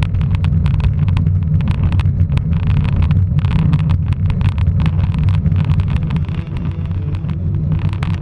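Wind buffeting the microphone and the rumble of a bicycle rolling quickly over cracked, patched asphalt, with many sharp, irregular rattles as the bike jolts over the bumps.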